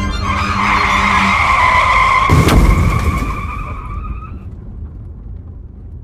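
Car tyres screeching in a long skid, with a crash impact a little over two seconds in; the screech fades out over the next two seconds.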